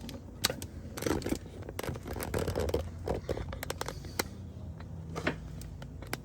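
Handling noise: scattered light clicks and short scrapes at irregular moments, as hands move around parts and the camera.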